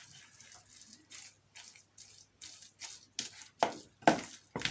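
Grated turnip and honey being stirred together with a spoon in a bowl: repeated wet scraping strokes, about two a second, getting louder near the end.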